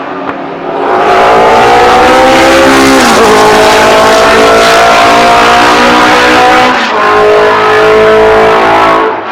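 Unsilenced historic racing car engine at full throttle, very loud. Its note climbs in pitch, drops sharply twice as it changes up a gear, then cuts off near the end.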